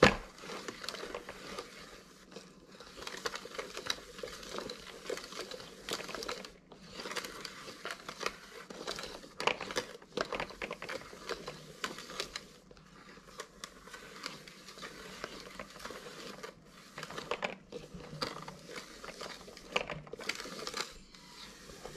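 The plastic mixing dome of a toy bath-bomb maker, hand-cranked to churn bath-bomb powder and crystals. It makes a dense, irregular crinkly rasping and clicking, with a few short pauses as the crank stops and starts.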